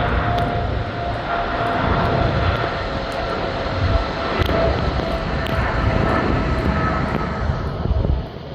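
Jet airliner's engines at takeoff power as it climbs out: a heavy rumble with a steady high whine, fading near the end.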